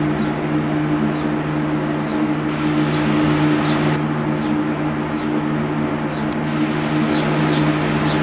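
Steady machine hum, a constant low drone over even hiss, with faint short high chirps now and then.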